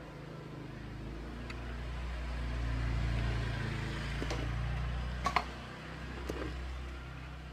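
A low engine hum that swells to a peak about three seconds in and then fades, as of a motor vehicle passing. Two sharp plastic clicks come about five and six seconds in as the speaker case is handled.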